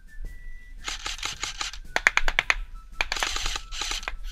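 Airsoft rifles firing: a few scattered shots about a second in, a short burst around two seconds, then a rapid full-auto burst of about a dozen shots a second from about three seconds in. It is suppressing fire in an exchange between the two teams.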